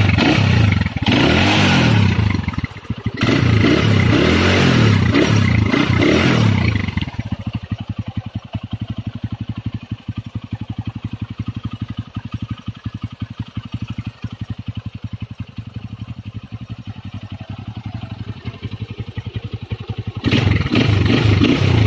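Modified Honda GL Pro motorcycle engine warming up: revved up and down for the first several seconds, then settling to a steady idle with an even, rapid beat, and revved again near the end.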